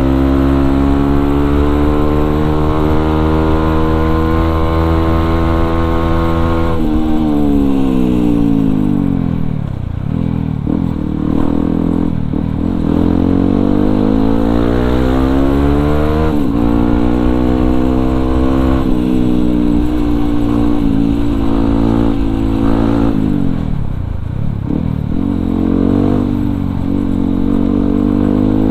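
Yamaha WR155R supermoto's single-cylinder four-stroke engine running through an aftermarket racing exhaust while riding. The revs climb slowly for several seconds and fall away about seven seconds in. They then rise and drop several more times as the rider shifts gears and rolls off the throttle.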